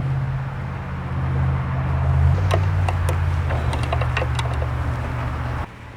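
A steady low hum that cuts off suddenly near the end, with a run of short metallic clicks in the middle as the starter cable's terminal nut is tightened with a hand tool.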